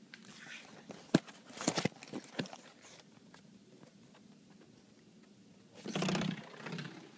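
Phone handling noise against window blinds: a sharp click about a second in and a few quicker clicks and knocks after it, then a louder rustling clatter about six seconds in as the phone meets the blind slats.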